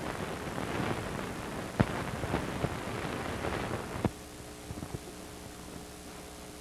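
Background noise of an old film soundtrack: hiss and crackle with scattered pops, dropping about four seconds in to a quieter steady hum.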